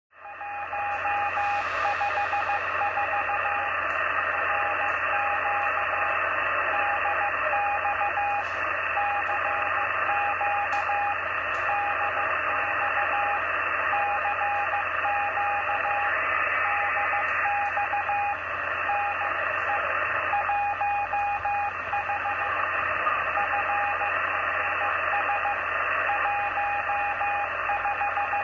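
Morse code (CW) heard through an Icom IC-706MKIIG transceiver on the 27 MHz band: a single beep keyed on and off in dots and dashes, the station 14FRS154 calling CQ DX, over steady band hiss.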